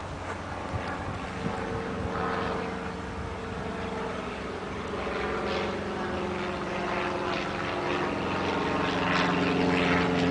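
Large aircraft's engines droning overhead, a steady hum with a rushing noise that grows gradually louder as it approaches.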